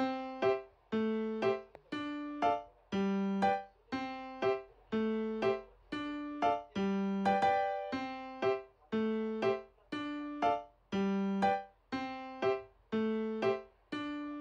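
Background music: a keyboard playing short, detached notes about two a second in a light, bouncy repeating tune.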